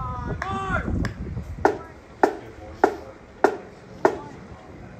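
A short voiced call or shout in the first second, then sharp wooden-sounding knocks at a steady beat, about one every 0.6 seconds.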